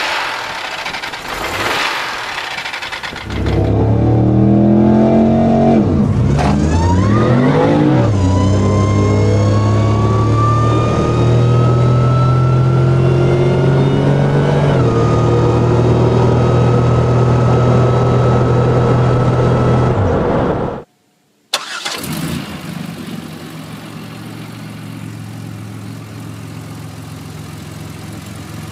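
Buick 3.8-litre V6 engines in three short clips: a 3800 running under an open hood, then a heard-from-inside engine that revs up and drops back, then pulls with a whine climbing steadily in pitch before stepping down and holding steady, and, after a second's break, another 3.8-litre V6 idling steadily.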